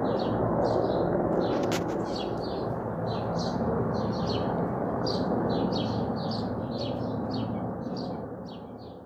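A small bird chirping over and over, about three short high calls a second, over the steady low rumble of helicopters flying overhead. Both fade out near the end.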